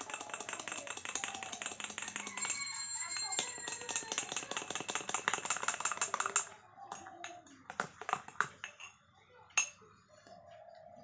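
A metal spoon stirring fast in a glass of milk, clinking and scraping against the glass many times a second. After about six and a half seconds the stirring slows to a few separate taps as the spoon is lifted out.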